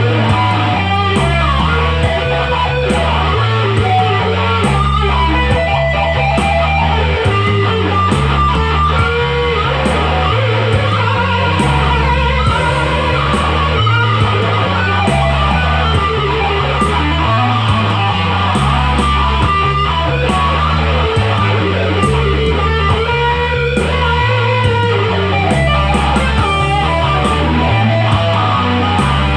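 Instrumental rock music: an electric guitar lead with bending, sliding notes over a bass line that moves between a few low notes, with a regular beat throughout.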